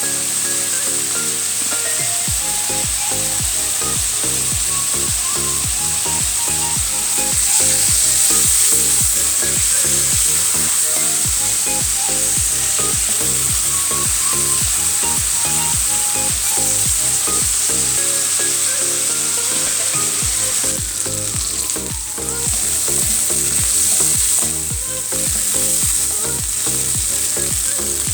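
Prawns frying in hot oil in a pan: a steady, loud sizzle that swells briefly about eight seconds in, with background music underneath.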